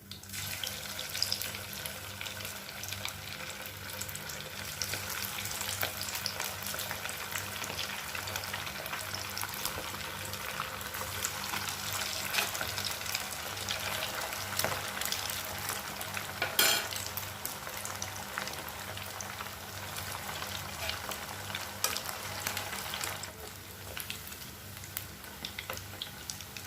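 Chicken, potato and semolina snacks deep-frying in hot oil, a steady crackling sizzle that starts abruptly and eases somewhat near the end. A single sharp clink about two-thirds through stands out above it.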